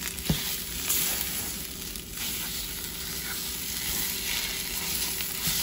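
Tomato paste, onion and curry powder sizzling in a nonstick frying pan on low heat, stirred and pushed around with a wooden spatula.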